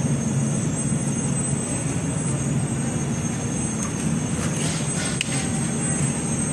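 Steady low hum of street noise, with a few faint clicks about four to five and a half seconds in.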